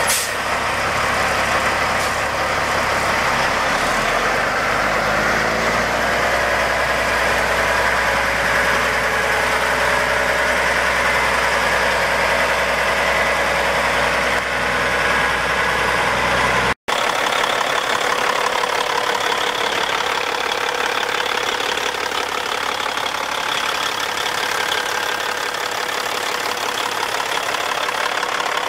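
A Caterpillar 3406E inline-six diesel running as the 1999 Peterbilt 377 tractor drives slowly past. After a sudden cut a little over halfway through, the same engine idles steadily, heard up close at the engine bay with a diesel clatter.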